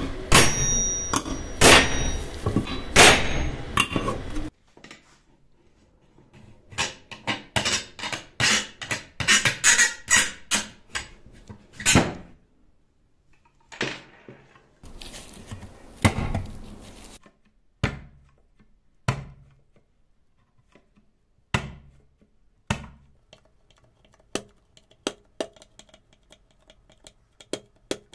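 Metal clinks, taps and knocks of hand tools and parts on the steel casing of a pendant motor's foot-pedal speed control as it is taken apart. A fast run of clicks comes a few seconds in, then single knocks at scattered intervals.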